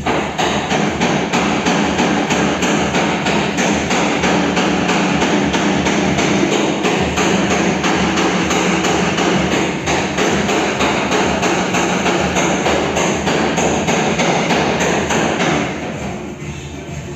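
Rapid, continuous tapping of a paintless dent repair tap-down hammer on a car body panel, stopping about a second and a half before the end, with background music.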